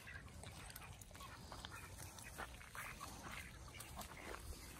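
Ducks quacking faintly now and then among a flock of foraging poultry.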